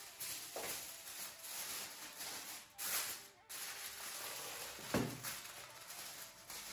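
Aluminium foil crinkling and rustling as hands crimp it around the edges of a baking tray, with a few sharper crackles, the loudest about five seconds in.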